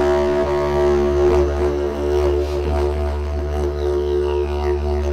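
Didgeridoo playing a low, steady drone, its overtones shifting in strength as the player shapes the tone. A high overtone glides downward about four seconds in.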